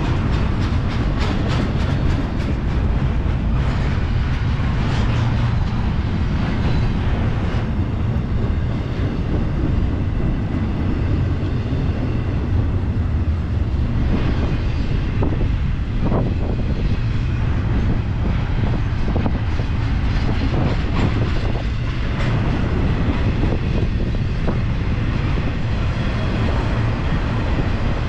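Double-stack intermodal well cars of a freight train rolling past close by: a steady, loud rumble of steel wheels on rail, with scattered clicks and clanks from the wheels and couplings.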